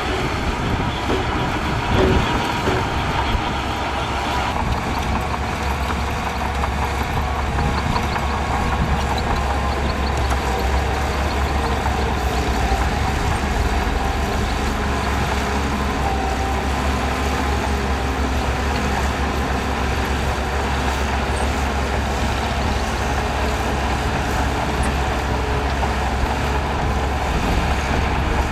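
Shantui DH17C2 bulldozer's diesel engine running steadily, with a short knock about two seconds in.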